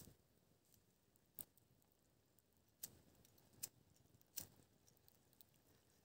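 Small stick campfire crackling: a handful of sharp, irregularly spaced pops and ticks over a quiet background.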